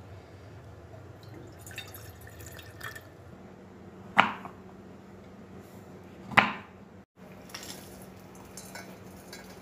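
Kitchen knife chopping a bar of milk chocolate compound on a wooden chopping board: two sharp knocks about two seconds apart, the loudest sounds here, after faint scattered ticks in the first few seconds.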